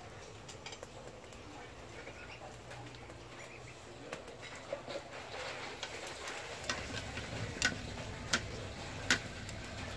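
Faint cooking sounds from a pot of curry on an open wood fire, with scattered light clicks and three sharper clicks near the end as chopsticks work in the pot.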